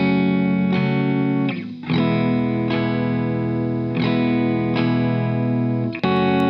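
Overdriven 'crunch' electric guitar strumming sustained chords, a new chord struck about every second, with a brief dip in level near two seconds in. The track is compressed through a stereo 1176-style FET compressor clone.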